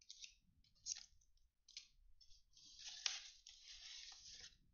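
Faint rustling and crinkling of trading-card foil packs being handled: a few short crinkles, then a longer stretch of crinkling in the second half.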